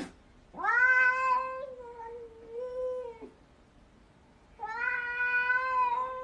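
Domestic cat meowing at a window in two long, drawn-out, steady calls, a second or so apart. It is the call this cat gives when it sees another cat outside.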